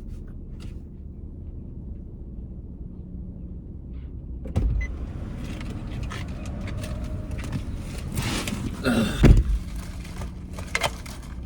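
Car interior with a steady low hum from the idling car. A car door opens with a thump about four and a half seconds in, followed by rustling and clatter as someone climbs in, and the door shuts with a heavier thump near the end.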